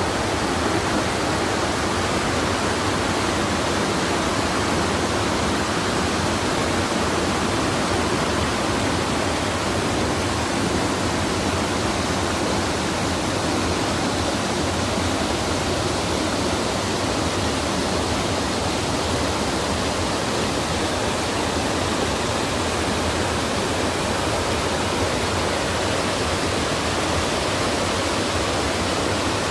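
Small rain-fed stream of gathered spring water rushing, a steady, unbroken water noise.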